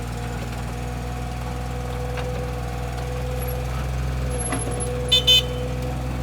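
Komatsu PC15-3 mini excavator's diesel engine running steadily with a constant whine over its low hum. About five seconds in, two short high beeps sound in quick succession, louder than the engine.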